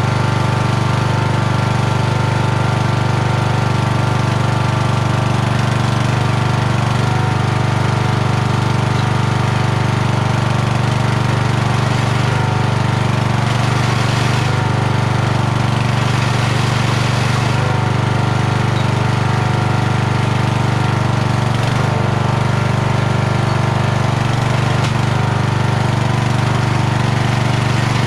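Kohler engine of a Toro LX460 lawn tractor running at a steady speed while its variable-speed (CVT) belt drive is tried: the tractor won't drive forward, only backward, and the drive belt smokes at the front.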